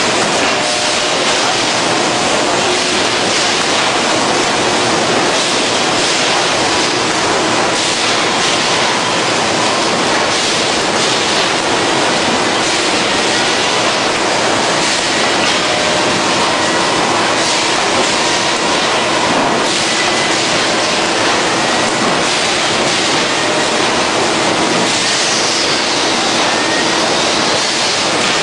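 100-layer hot press and its hydraulic loading mechanism running: a loud, steady mechanical noise with faint steady whines underneath. Near the end a brief squeal slides up and then down.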